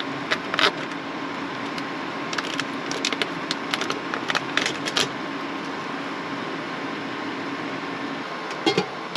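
Plastic microwave rice pouch crinkling as it is handled over a pot of steaming rice, in a string of short crackles, over a steady low hum. A few light clicks near the end.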